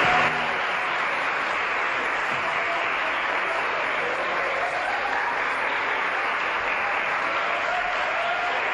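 Studio audience applauding steadily. Theme music cuts off just after the start.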